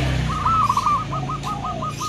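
Zebra dove (perkutut) cooing: a fast run of short, evenly repeated notes, about seven a second, starting just after the start. A low hum cuts off as the notes begin.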